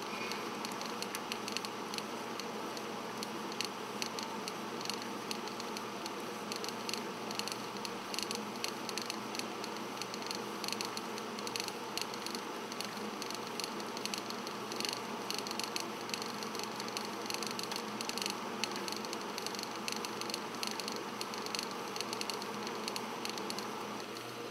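Steady hiss and irregular crackle of an old 16mm film soundtrack played on a flatbed editing machine, with a faint steady hum underneath.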